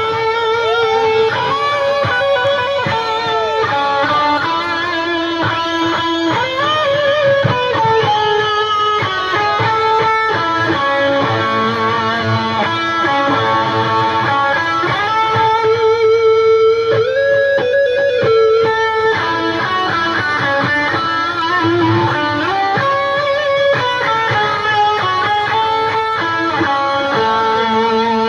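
Live rock band with an electric guitar playing lead. The guitar holds sustained notes with frequent string bends over drums and bass.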